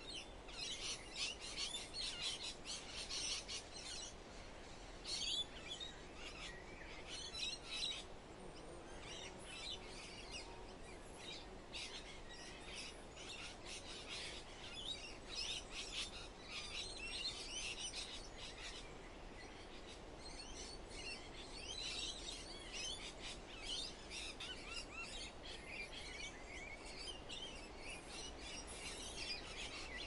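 Chorus of many small songbirds chirping and trilling in quick, overlapping high calls, busiest in the first several seconds, over a steady soft hiss of forest ambience.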